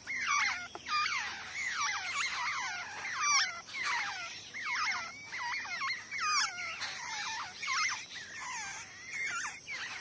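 Nestlings begging for food: a continuous chorus of rapid, high, squeaky chirps, several a second.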